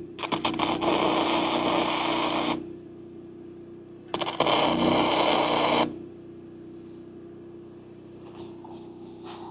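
Two tack welds from a Lincoln Electric Weld-Pak flux-core wire welder: the arc crackles and sputters for about two and a half seconds, stops, then crackles again for about a second and a half starting about four seconds in. The welder's steady hum runs underneath throughout.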